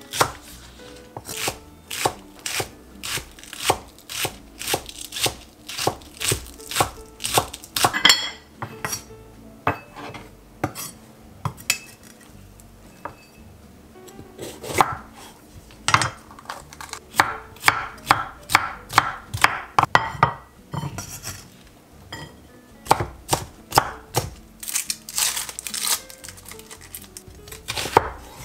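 Cleaver-style knife chopping vegetables on a wooden cutting board: sharp blade strikes against the board in quick runs of about two to three a second, with a couple of short pauses.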